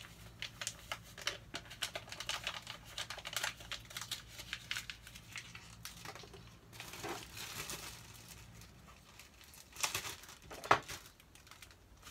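Crinkling and rustling of a seasoning packet being torn open and emptied into a crockpot, in many small crackles, with a spoon clicking in the pot and one sharp tap near the end.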